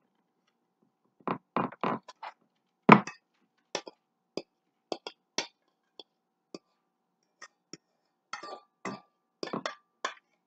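Stainless steel mixing bowl knocking and clinking against the rim of a baking dish as meatloaf mixture is shaken out of it: an irregular string of short, sharp knocks, the loudest about three seconds in.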